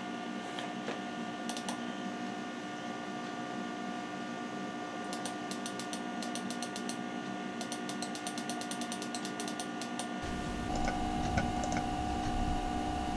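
Macintosh SE running with a steady hum, and several quick runs of rapid ticking from a disk drive reading as a disk window opens. At about ten seconds the background changes to a lower hum.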